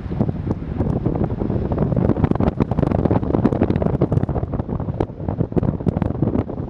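Airflow of a paraglider in flight rushing over the microphone, loud and gusting unevenly.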